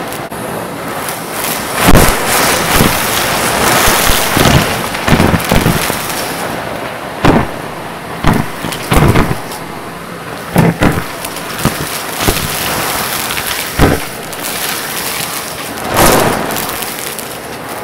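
Vacuum cleaner running steadily while sucking up hard debris, with irregular loud clacks and rattles as pieces are pulled into the nozzle.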